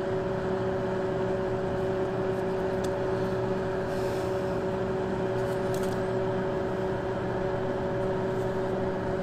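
A steady machine hum with a constant pitch runs under a few faint, light clicks.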